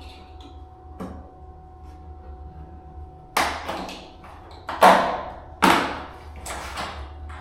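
Luxury vinyl plank being handled and fitted on the floor: a light click, then four sharp knocks and scrapes of the plank against the floor and wall, the one near the middle the loudest.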